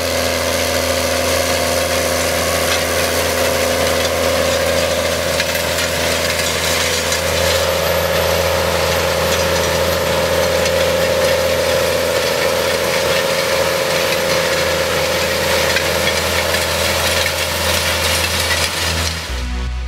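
New Holland tractor engine running steadily under load while pulling a seed drill through dry soil, with a constant hum and dense noise. The sound cuts off abruptly near the end.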